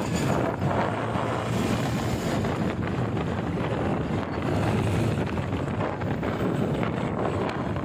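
Wind rushing over the microphone of a handlebar-mounted phone on a moving motorcycle, with the motorcycle's engine and road noise beneath it at a steady cruising speed.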